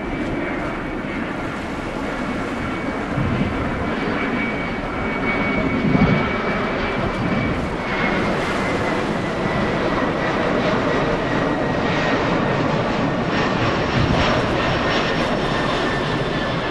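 Ferry Mega Express Two's diesel engines running as the ship passes close by: a steady low rumble with a high whine that slowly falls in pitch, swelling briefly about six seconds in.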